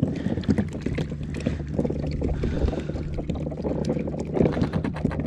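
Many short knocks and rattles on a fishing kayak as things are handled on board, over a steady low hum.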